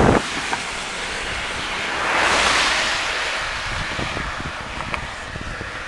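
Wind buffeting the microphone of a camera carried on a moving bicycle, a steady rushing noise. About two seconds in, a car's tyre noise swells and fades as it overtakes.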